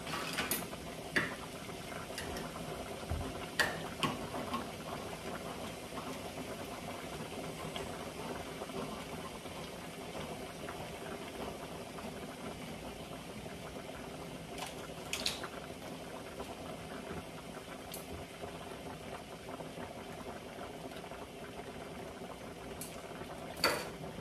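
Beef stew bubbling in a wide pan on the stove: a steady boiling hiss, with a few sharp clicks now and then.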